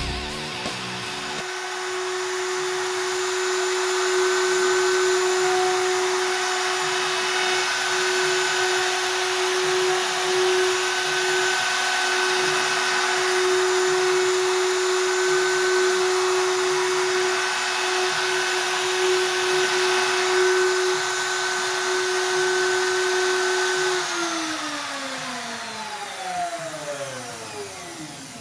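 DeWalt router running at a steady high speed while it is slid along a radiusing jig, cutting a radius into a guitar fingerboard. About 24 seconds in it is switched off and winds down, its whine falling in pitch.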